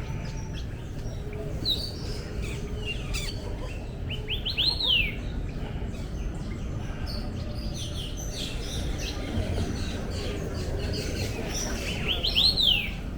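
Several birds chirping and calling, with a quick run of rising-and-falling notes heard twice, about four and a half seconds in and again near the end, over a steady low background hum.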